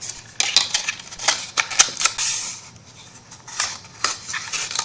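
Irregular sharp clicks and taps of craft materials and tools being handled on a work table, with a brief rustle a little after two seconds.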